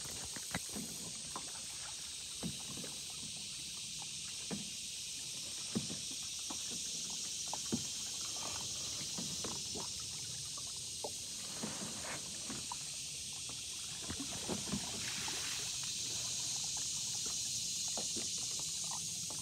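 Kayak paddling on a slow river: splashes and drips from the paddle blades, with short knocks every second or two, over a steady high-pitched hiss.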